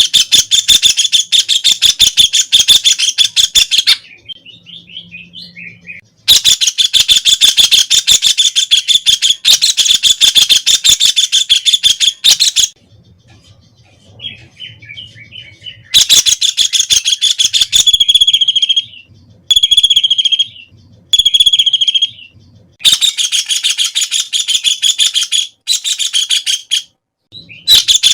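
White-throated kingfisher (Halcyon smyrnensis) calling: long, loud, very fast rattling trills lasting several seconds each, broken by short pauses. After a trill in the middle there are three short, shrill single notes about a second apart.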